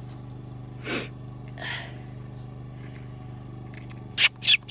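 Mini Australian Shepherd puppies play-fighting: a couple of short, faint squeaks early on, then three sharp, loud yips in quick succession near the end, over a steady low hum.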